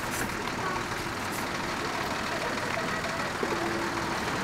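A vehicle engine runs steadily under even street noise.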